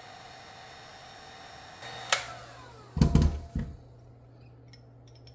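Black & Decker heat gun blowing steadily, then switched off with a click about two seconds in, its fan winding down with a falling whine. About a second later come several loud thuds as the heat gun is set down on the silicone mat.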